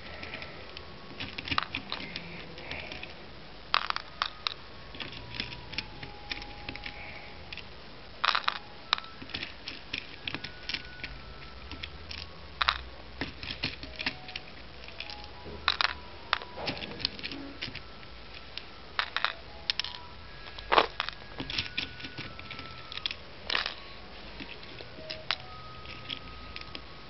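Plastic fuse beads clicking and rattling as they are picked out of a plastic storage box and dropped into a small plastic basket: irregular sharp clicks, several at a time.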